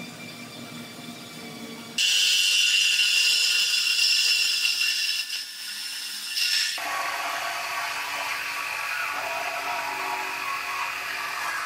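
Compact cordless Milwaukee reciprocating saw cutting through a steel truck frame rail section. It starts abruptly about two seconds in, then drops lower in pitch and runs a little quieter about seven seconds in.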